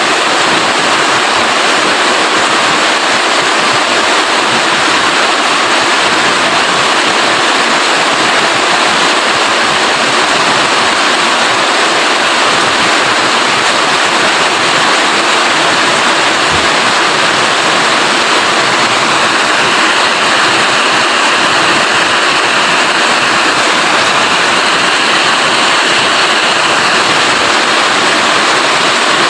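Steady rain falling, an even hiss that never lets up.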